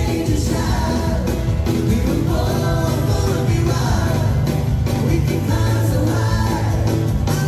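A band playing a song with sung vocals.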